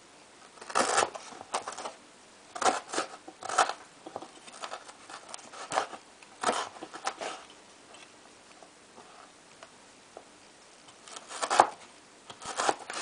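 Crinkle-cut knife slicing a raw carrot lengthwise on a wooden cutting board: short bursts of crunchy cuts and blade knocks on the board. There is a pause of a few seconds before a last run of cuts near the end.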